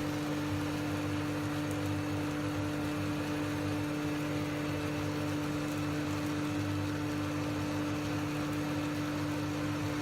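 Ultrafine powder mill running steadily: a constant machine hum with a strong low tone over a broad whirring noise.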